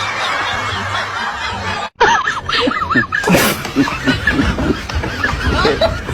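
People laughing and snickering. A brief drop-out about two seconds in, like an edit cut, is followed by quick wavering, giggling sounds.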